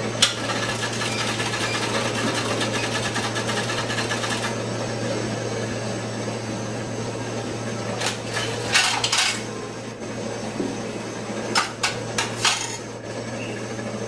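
ATM cash machine mechanism running over a steady hum: a sharp click, then a rapid mechanical rattle for about four seconds, followed by clusters of clicks and clunks about eight seconds in and again near the end.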